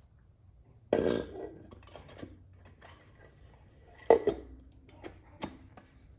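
Metal head-stud washers being set down over the studs onto an engine's cylinder head: a series of sharp metal clinks and knocks, the loudest about one second and four seconds in, with a few lighter ones between.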